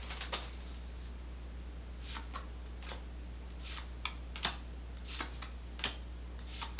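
Pokémon trading cards being flipped one by one from the front to the back of a hand-held stack, each move giving a short crisp card flick, about eight of them starting about two seconds in. A steady low hum runs underneath.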